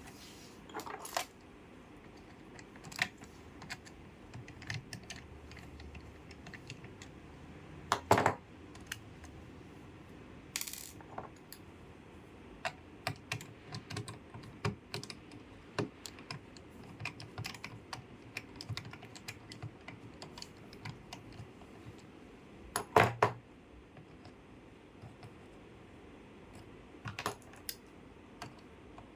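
Irregular sharp clicks and taps, like keys or small computer parts being handled, with two louder clattering knocks, one about a quarter of the way in and one about three-quarters of the way in.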